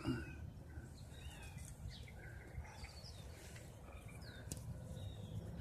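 Faint outdoor background: scattered short bird chirps over a low, steady rumble.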